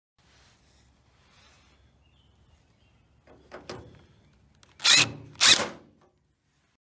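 Cordless drill run in two short, loud bursts against the bus heater's sheet-metal housing, after a few light clicks of handling.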